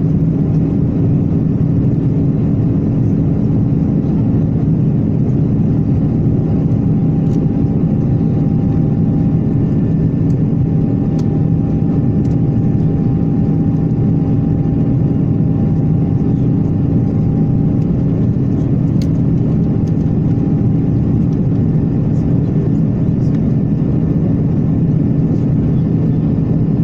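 Cabin noise in an Airbus A330-900neo, heard beside the wing: the steady drone of its Rolls-Royce Trent 7000 turbofans and rushing airflow, with a few constant hum tones running through it.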